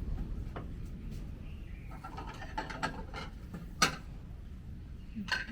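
Scattered light clicks and knocks of kitchen utensils and a plate being handled, one sharper knock about four seconds in, over a low steady rumble.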